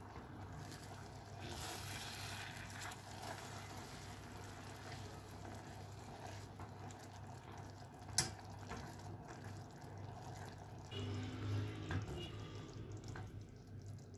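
Caramel sauce bubbling and sizzling in a stainless steel saucepan while milk is stirred into it with a silicone spatula, with one sharp knock about eight seconds in.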